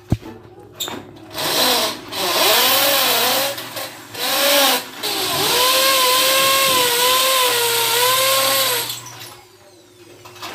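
Handheld power drill run in four bursts against a window frame, its motor whine dipping and recovering in pitch as it bites under load; the last run is the longest, about three and a half seconds. A sharp knock right at the start.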